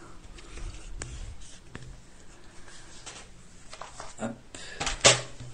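Handling noise from a smartphone being turned around by hand: rubbing and a few light knocks on its microphone, with a sharper knock near the end.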